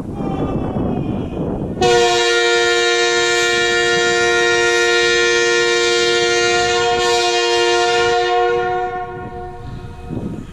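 Nathan K3H air-chime train horn blown with its number 1 bell blocked off, so only bells 2 and 3 sound together as a two-note chord. The blast starts abruptly about two seconds in, holds steady for about seven seconds, and dies away near the end.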